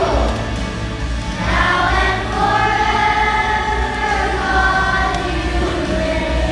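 A choir singing, with notes held for about a second each.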